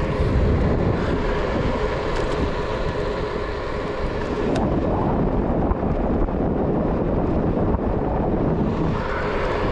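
Steady wind rush on a bicycle-mounted action camera's microphone, mixed with the tyres rolling on a paved path while riding. One short sharp click about four and a half seconds in.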